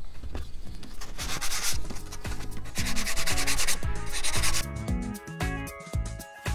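Sanding block rubbed back and forth along the edge of a plywood firewall in several hissing strokes, shaping it to fit. Background music with a steady beat comes up over it in the last couple of seconds.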